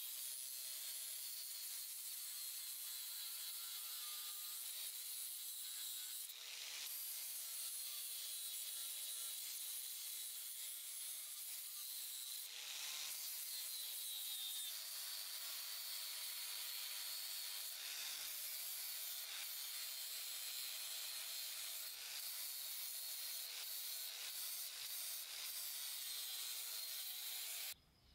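Angle grinder with a sanding disc grinding the forged steel rebar of a slingshot fork: a steady motor whine under a continuous grinding hiss, with a few short interruptions. It cuts off abruptly near the end.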